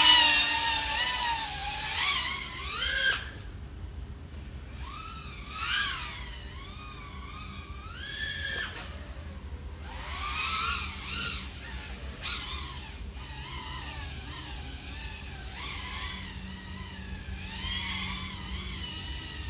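3.5-inch FPV quadcopter's brushless motors (iFlight XING 1504 3100KV) spinning Gemfan propellers, whining with a pitch that rises and falls sharply as the throttle changes. It is loudest near the start and in surges a few seconds apart.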